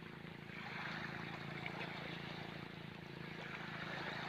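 A small engine running steadily under a rushing hiss of water and wind that swells and eases twice.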